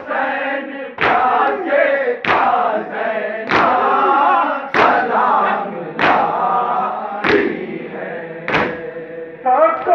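A crowd of men chanting a Shia nauha (mourning lament) in chorus, with a loud unison chest-beating (matam) slap about every second and a quarter, seven strikes in all.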